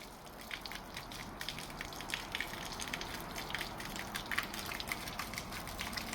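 Water spraying and spattering from a leaking pipe joint under repair: a steady hiss with many small sharp ticks of drops and splashes.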